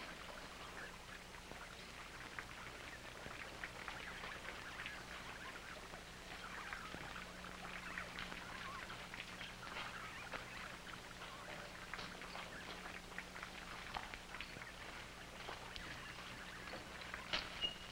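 A swarm of bats squeaking and fluttering: a faint, dense stream of short high chitters.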